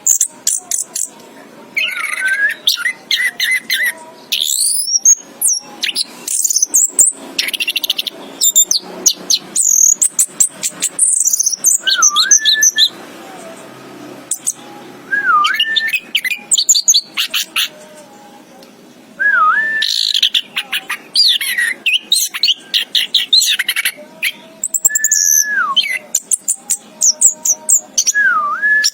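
Orange-headed thrush (anis kembang) singing in varied phrases: fast rattling strings of notes mixed with clear whistles that dip and rise again, broken by short pauses.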